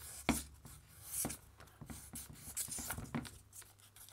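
Sandpaper rubbing against the copper commutator of a hammer drill's armature in repeated short scratchy strokes, sanding off an oxide layer. A sharper knock comes about a third of a second in.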